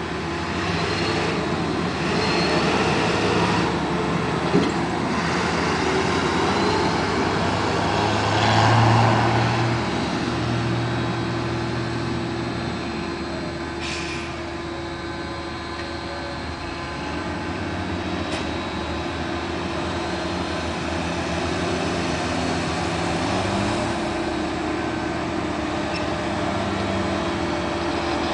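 Diesel farm tractor engines running steadily, swelling about eight to nine seconds in. Near the end, a tractor pulling a large tipper trailer draws near.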